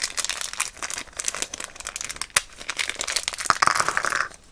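Plastic blind-bag packaging crinkling and tearing in the hands as a toy accessory pack is opened, a steady run of irregular crackles.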